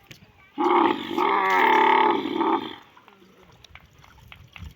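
A camel's loud, drawn-out call lasting about two seconds, starting about half a second in.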